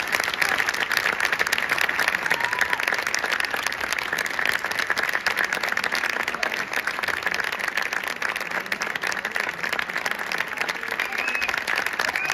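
Concert audience applauding an orchestral performance just ended, a dense, steady clapping that keeps up at an even level.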